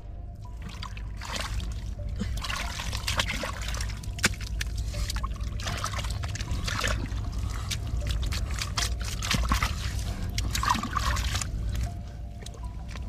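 Shallow muddy water sloshing and trickling, with many small irregular splashes.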